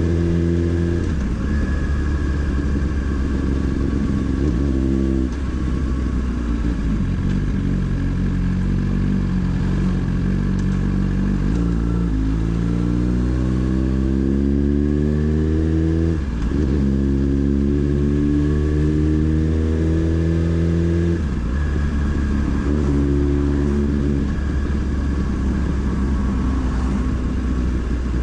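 Motorcycle engine under way, pulling steadily with its pitch rising under acceleration twice in the middle, then dropping sharply at each gear change.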